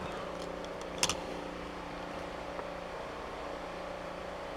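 Steady mechanical hum with a few steady tones in it, and a single short click about a second in.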